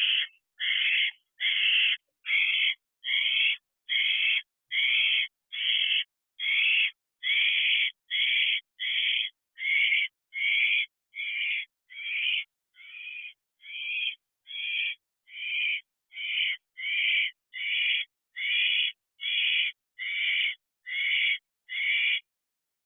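Fledgling barn owl giving a long series of rasping hiss calls, about three every two seconds, one dipping slightly weaker midway: the repeated food-begging hiss of a young barn owl.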